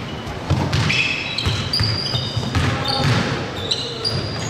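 A basketball being dribbled on a hardwood gym floor, thudding repeatedly, with many short high-pitched squeaks of sneakers on the court during play.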